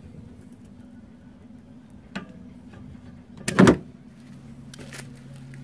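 Pliers clicking on the axle nut at the end of an Audi A4 B5 rear wheel hub while pulling out the split pin, with a few light metal clicks and one sharp, louder clack about three and a half seconds in. A steady low hum runs underneath and drops in pitch just after the clack.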